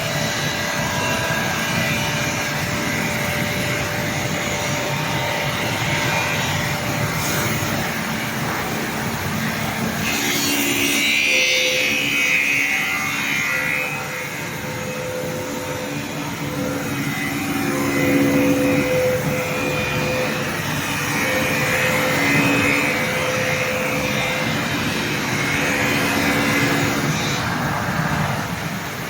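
CNC glass machining centre running, its spindle grinding a round edge on stove glass: a steady machine noise with a hissier stretch about ten seconds in.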